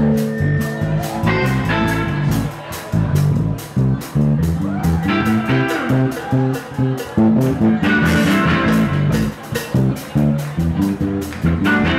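Live rock band playing amplified, with electric guitar and bass notes over a steady beat.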